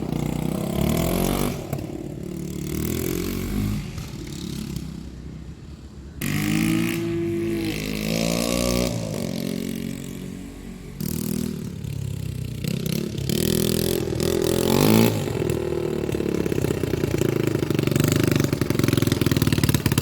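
Four-wheeler (ATV) engine, freshly rebuilt along with its transmission, running and revving up and down as it is ridden through the gears. It fades for a couple of seconds, comes back with rising and falling revs, and near the end runs louder and steadier with a fast pulsing beat.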